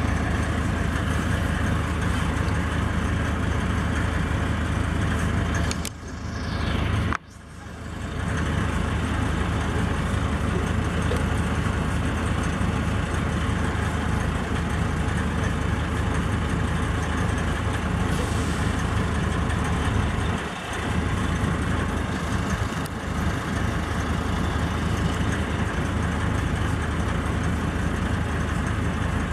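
Heavy diesel engine idling steadily with a constant low hum, the sound dipping sharply for a moment about seven seconds in.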